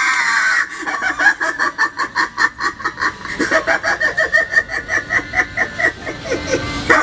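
A Halloween animatronic prop's recorded sound playing: a rapid, repeating cackle of several pulses a second.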